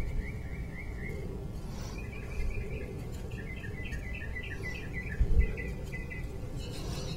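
A songbird chirping in runs of quick repeated rising notes, over a steady low background rumble, with a couple of brief low knocks about two and a half and five seconds in.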